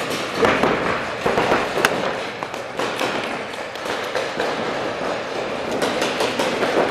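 Paintball markers firing in quick, irregular sharp pops, with paintballs smacking against the inflatable bunkers.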